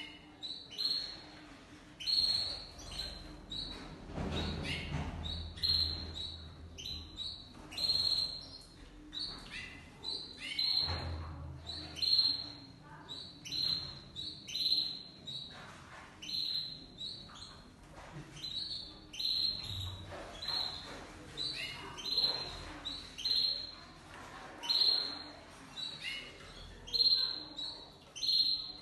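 Domestic canaries calling in short, repeated chirps, roughly one a second, with a couple of low thuds about four and eleven seconds in.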